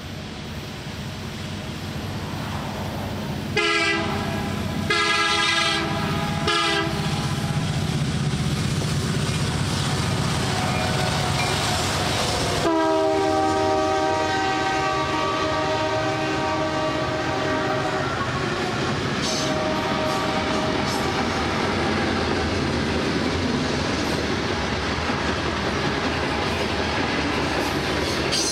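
Diesel freight locomotive horn sounding two longer blasts and a short one, then a long held blast, the pattern blown for a grade crossing. It sounds over the growing rumble of the approaching locomotives. After the horn the locomotives pass and the freight cars roll by with a steady clickety-clack of wheels on rail joints.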